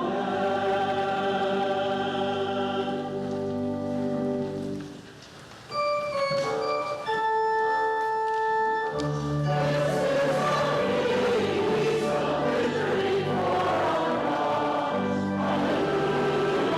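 A group of voices singing a hymn with organ accompaniment. About five seconds in the singing fades out, a few held organ notes sound on their own for a few seconds, and then the voices come back in with the organ.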